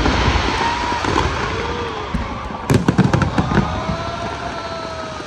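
Fireworks booming and crackling, with a rapid flurry of sharp cracks about three seconds in.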